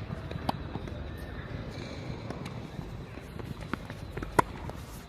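Tennis ball being struck by a racket and bouncing on the court, a few sharp pops with footsteps in between; the loudest, ringing hit comes about four seconds in.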